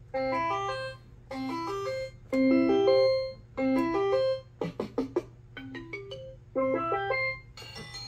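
VTech Little Smart Super Sound Works toy keyboard cycling through its built-in instrument voices. Each button press plays a short quick run of notes under a second long, about six in a row with brief gaps. About halfway through comes a clattering drum-like passage, and a faint low hum sits underneath.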